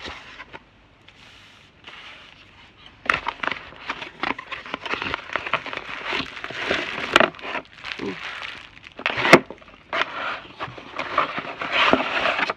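Packaging crinkling and rustling as a camera gimbal is unboxed, with a few sharp clicks and knocks, the loudest about three-quarters of the way through.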